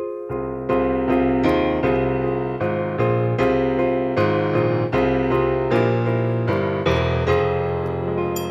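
Electronic keyboard played with a piano voice: a melody in the left hand under chords in the right, notes struck about every half second, with the last chord left to fade near the end.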